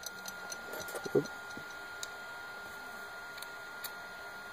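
Light clicks and taps of small parts being handled as an output shaft is fitted back into an RC car differential, with one louder knock about a second in. A faint steady high whine runs underneath.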